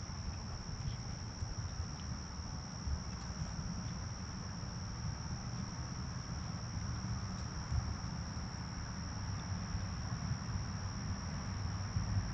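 Crickets chirring at night in a steady, unbroken high-pitched chorus, over a low rumble.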